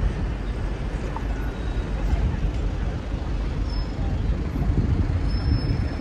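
City street ambience: a steady low rumble of traffic, with faint voices of passers-by.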